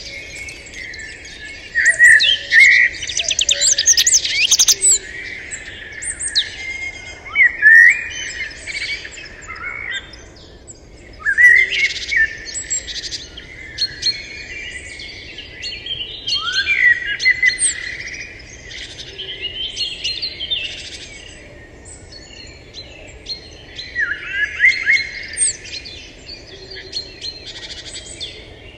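Several birds chirping and singing at once: a busy chorus of short high calls and rising chirps, with louder bursts every few seconds.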